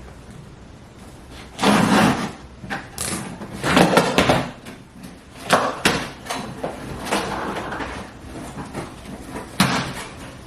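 Delivery packages being handled and opened: several separate bursts of rustling and scraping, with a few sharp knocks.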